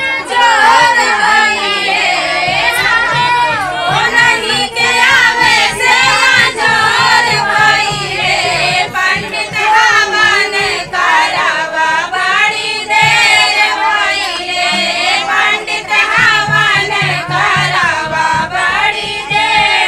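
Group of women singing a Hindi folk havan song together, a lead voice into a handheld microphone with the others joining in.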